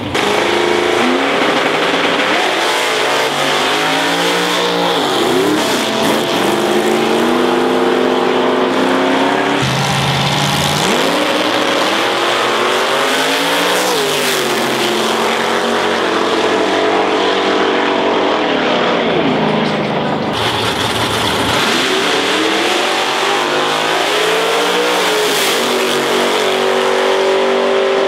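Drag race cars' engines revving hard and accelerating down the strip. The pitch climbs and drops again and again as they shift through the gears. The sound changes abruptly about ten and twenty seconds in, where one run cuts to the next.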